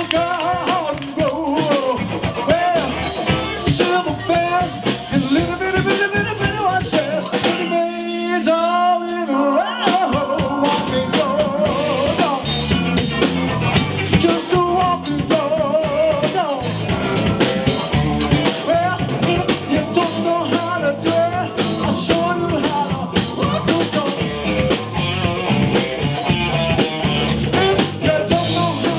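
Live blues band playing: electric guitar, electric bass, drums and keys, with a man singing lead. About eight seconds in, the bass and drums drop out for a couple of seconds before the full band comes back in.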